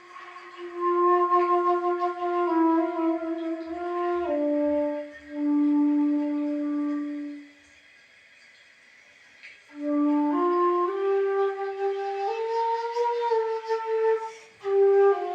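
Xiao, the Chinese end-blown bamboo flute, playing a slow melody of held notes one at a time, in two phrases with a pause of about two seconds between them.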